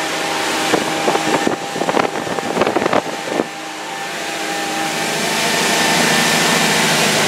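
Motorboat engine running steadily under way, with wind rushing over the microphone. A cluster of rough buffeting knocks between about one and three and a half seconds in, then the wind noise swells toward the end.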